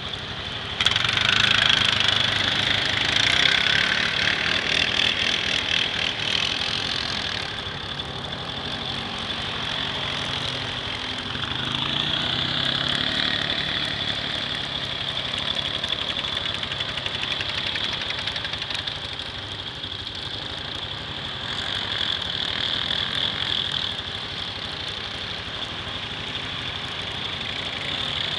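ATV engines running as the quads drive through deep muddy water, loudest from about one to seven seconds in, then swelling and fading as they move about.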